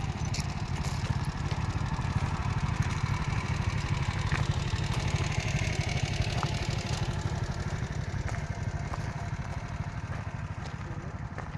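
Footsteps crunching on loose stony gravel, scattered light ticks, over a steady low rumble.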